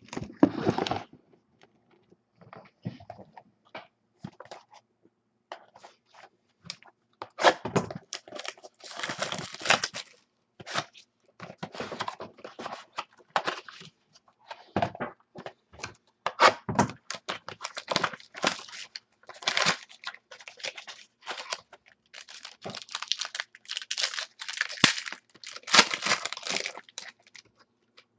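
Hands tearing open and handling football trading card packs: irregular rustling, crinkling and tearing of wrapper, with cards sliding and being shuffled. The sound comes in uneven bursts with short gaps between them.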